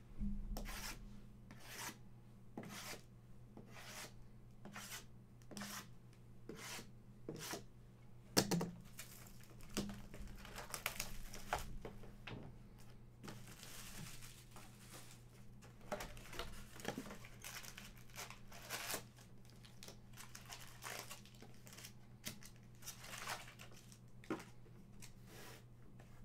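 Trading-card pack wrappers being torn open and crinkled by hand: repeated short rips and rustles, with longer crinkling stretches now and then.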